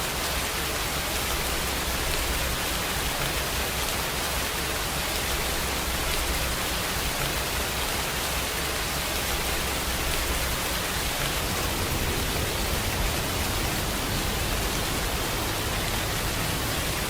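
Steady, even rain with no single drops standing out.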